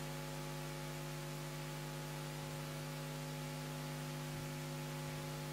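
Steady electrical hum made of several fixed tones, with an even hiss beneath it.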